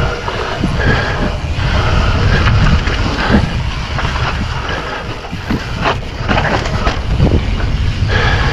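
Wind buffeting the camera microphone over the rumble and rattle of a mountain bike rolling down a steep dirt descent, with scattered knocks from the trail.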